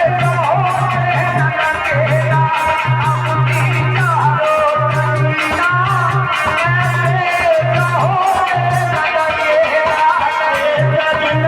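Indian folk-style song music: a wavering melody line over a steady, repeating low drum beat, with some singing.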